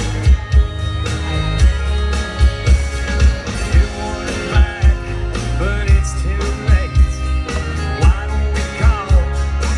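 Live country rock band playing amplified through a large PA, with a male lead vocal over electric guitars, a heavy bass line and a regular kick drum.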